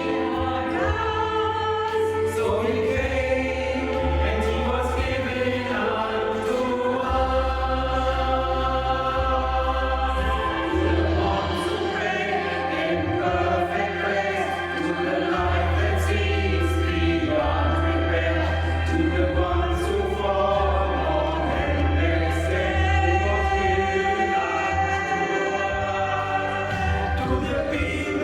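Choir singing in several voices, with deep sustained notes underneath that change every few seconds.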